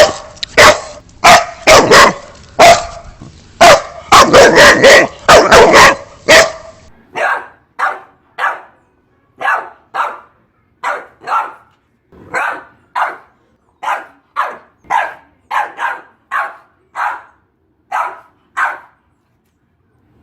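Boxer dog barking: a dense run of loud, overlapping barks, then, about seven seconds in, a switch to a quieter, cleaner run of evenly spaced single barks, some in pairs, about one and a half a second.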